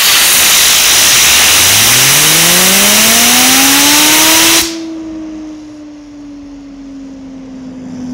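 Loud hiss of compressed air from an air compressor driving a handheld fidget spinner, with the spinner's whir rising steadily in pitch as it speeds up. The air cuts off suddenly about four and a half seconds in, leaving the spinner whining on its own, its pitch slowly falling as it coasts.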